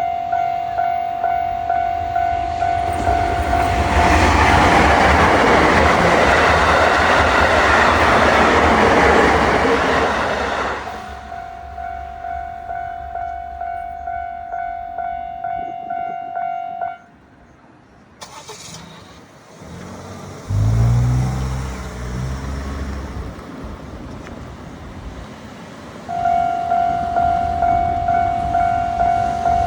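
Japanese level-crossing alarm ringing its electronic 'kan-kan' bell at about two dings a second, while a train passes for several seconds with a loud rushing rumble. The bell stops suddenly after the train has gone, a vehicle engine is heard, and the bell starts ringing again near the end.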